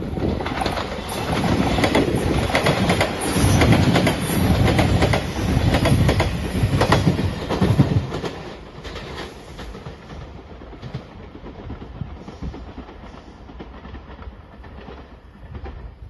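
Five-car Shiokaze limited express electric train passing at speed over a level crossing, its wheels clacking rapidly over the rail joints. It is loudest for the first eight seconds or so, then drops away to a faint rumble with a few scattered clacks.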